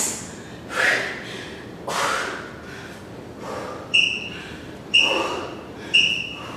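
A woman breathing out hard in time with an exercise, a few breaths in the first half. Then, near the end, three short high beeps a second apart from an interval timer, counting down the end of the interval.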